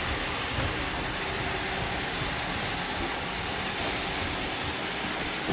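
Robot vacuum cleaners running with a steady, even whir.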